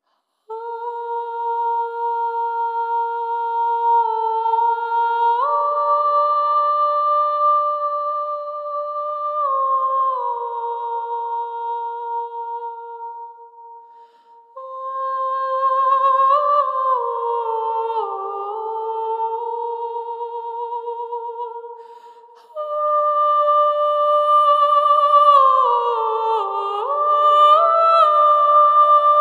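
A slow melody hummed by a high voice, with long held notes that slide between pitches. Two short breaks come where the phrases end.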